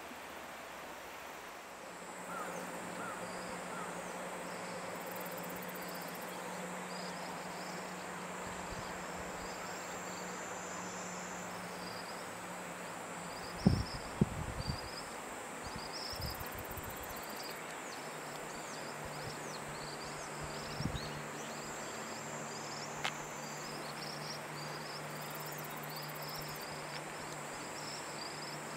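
Outdoor insect chorus: a steady high hiss with a short chirp repeating about twice a second, over a faint low hum. A few low thumps come about halfway through.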